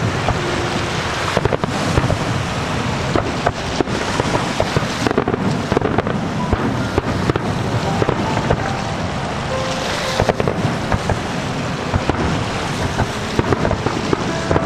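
Fireworks display: aerial shells bursting in a quick, irregular string of sharp bangs and crackles.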